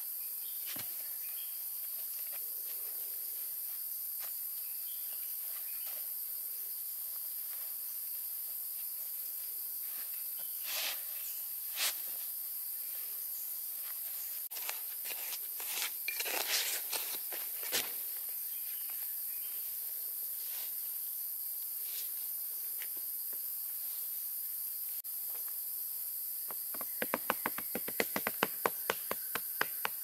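Steady high drone of forest insects, with a few scraping strokes of a small shovel digging into sandy soil around the middle. A quick run of sharp clicks comes near the end.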